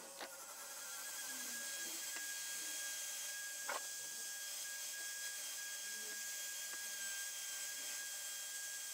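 Cordless drill motor speeding up just after the start and then running with a steady high whine, spinning a steel washer blank on a bolt that is being trued round by hand with a file and sandpaper; a couple of sharp ticks.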